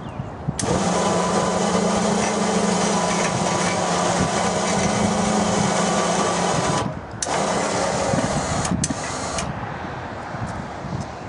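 Electric hoist motor of a Weightlifter Slide Lift van-mounted pallet crane running steadily as it lowers a pallet load to the ground. It stops about seven seconds in, runs again for about a second and a half, then gives two short bursts and stops.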